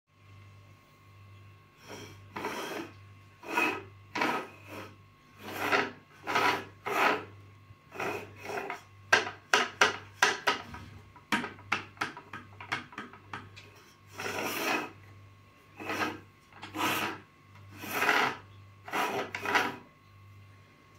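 Hard plastic wheels of a toy tractor rolling and scraping across a wooden surface as it is pushed back and forth by hand, in repeated strokes about half a second long, with a run of quicker, sharper strokes in the middle.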